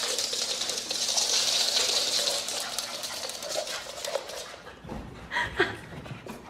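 A small dog at play: a dense hissing noise full of fine ticks fades over the first four seconds, then a short whine about five and a half seconds in.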